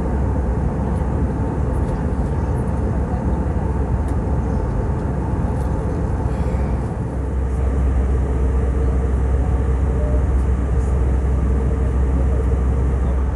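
Steady in-flight cabin drone of an Airbus A319, the low rumble of its CFM56 engines and airflow, growing louder about halfway through.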